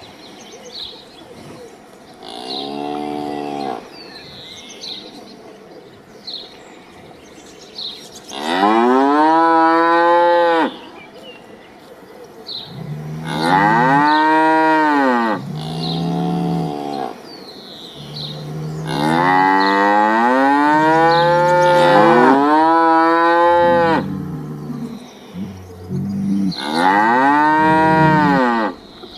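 Cattle mooing, about six long moos that each rise and then fall in pitch, some overlapping near the middle, with the first one fainter. Birds chirp faintly in the background.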